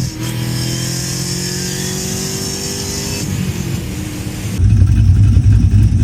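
A C5 Corvette's LS1 V8 engine running, with no belt squeal now that the worn belt tensioner and idler pulley have been replaced. About four and a half seconds in it turns to a louder, deeper rumble as the car drives off.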